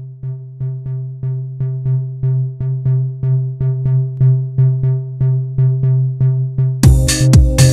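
Electronic music: a synthesizer bass note pulsing about three times a second, growing louder, until a full drum-machine beat with more synth parts comes in near the end.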